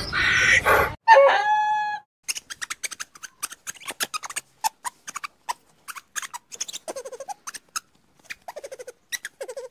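A loud, noisy sound cuts off about a second in. It is followed by a single drawn-out bird call, then a run of short clucks and sharp clicks with a few brief falling calls.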